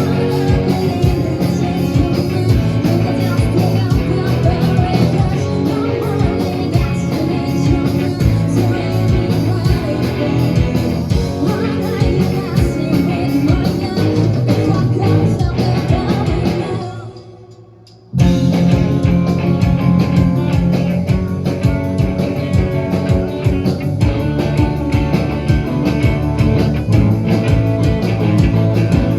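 Rock band playing live, singing over electric guitars and a steady beat. About two-thirds of the way through the band fades out for a moment, then comes back in all together.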